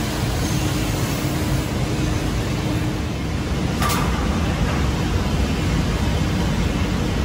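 CNC wood lathe with automatic sanding running: a steady machine noise with a low rumble, and one short sharp click about four seconds in.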